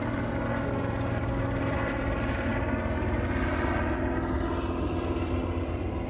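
Low-flying propeller aircraft passing overhead, its engine drone steady, with the pitch dropping as it goes by.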